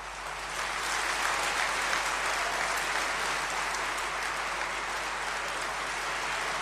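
A large audience applauding in a big hall. The clapping builds up over the first second, then holds steady.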